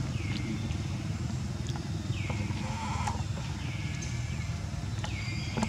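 Outdoor forest ambience: a steady low rumble under a high call that falls in pitch and levels off, repeated about every second and a half. A brief squeak comes about halfway through.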